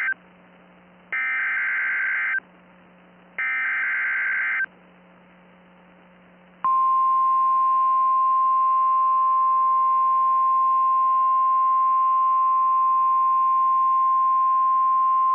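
Emergency Alert System SAME header data bursts: one cuts off at the very start, then two more follow, each about a second and a quarter long and a second apart. About six and a half seconds in, a steady single-pitch NOAA Weather Radio warning alarm tone starts and holds for about nine seconds, announcing a special marine warning.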